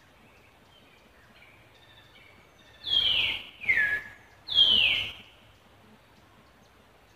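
Three loud, high calls about three to five seconds in, each sliding down in pitch, over faint chirping in the background.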